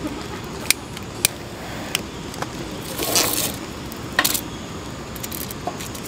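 A long-nosed lighter clicking at a firelighter, then split kindling scraping and knocking on the steel plate of a fire pit: a few sharp clicks, two short scrapes about three and four seconds in, and light knocks near the end.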